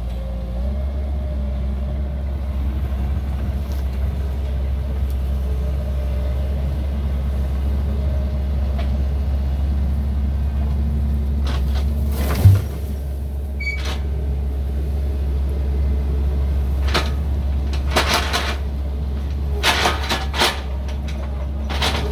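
Tractor engine running steadily at close range, a constant low drone. A single loud thump about halfway through, with a few lighter knocks and rattles near the end.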